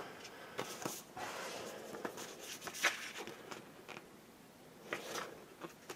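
Soft rustling of paper leaflets and cardboard packaging being handled, with a few light, sharp ticks.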